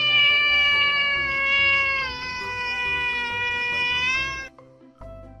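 Tabby-and-white domestic cat giving one long, drawn-out meow of about four and a half seconds, dropping slightly in pitch about halfway through and cutting off suddenly. Background music with a steady beat plays underneath.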